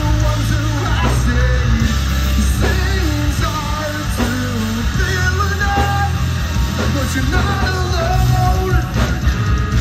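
Live heavy rock band playing loud: distorted electric guitars, bass guitar and drum kit, with a male lead vocal singing over them.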